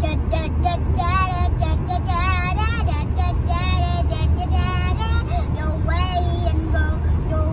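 A high voice singing a wavering melody with heavy vibrato, over the steady low rumble of a car cruising at freeway speed, heard from inside the cabin.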